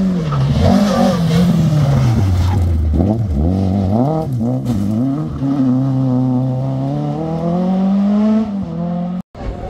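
Rally car engine on a gravel stage: revs fall as it comes off the throttle, rise and fall quickly several times around three to five seconds in, then climb steadily as the car accelerates away and drop sharply near the end.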